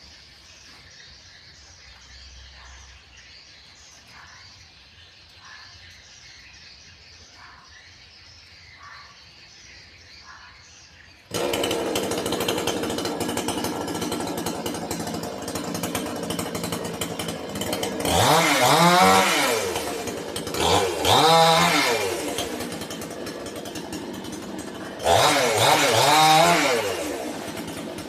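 Faint background sound for about ten seconds, then a chainsaw comes in abruptly and runs loudly, revved up and down three times in the latter part.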